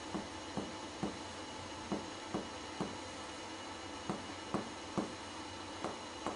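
Finger-on-finger percussion of a patient's chest: the striking middle finger taps the pleximeter finger pressed on the chest wall, in short dull taps in twos and threes about half a second apart, the left and right sides struck in turn for comparison. The note is taken for the clear pulmonary resonance of healthy lungs.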